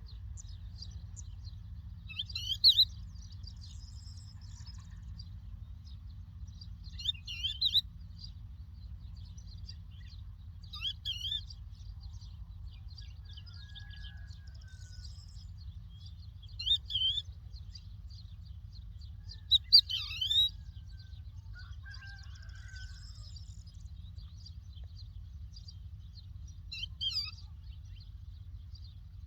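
A lark calling in short, clear chirping phrases, about six of them, repeated every four to five seconds. Fainter bird chirps sit between the phrases, and a steady low rumble runs underneath.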